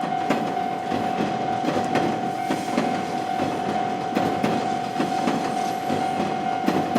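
Train passing with a rhythmic clickety-clack of wheels over rail joints, over the steady ringing tone of a Japanese railroad crossing warning bell.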